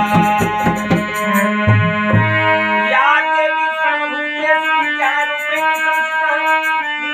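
Harmonium and a hand drum playing together. Drum strokes over held harmonium notes for the first three seconds, then the harmonium carries a stepping melody with lighter percussion.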